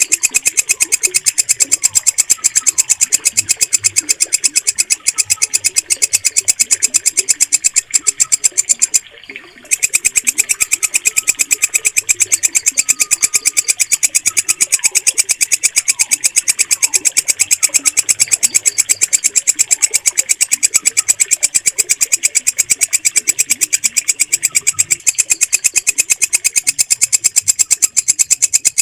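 A walang kecek katydid singing a steady, rapid train of shrill ticking pulses, with a brief pause about nine seconds in. Faint bird chirps sound underneath.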